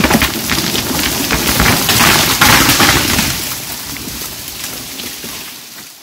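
Large spruce tree falling: dense cracking and snapping of wood and branches as it crashes down, loudest about two to three seconds in, then fading away.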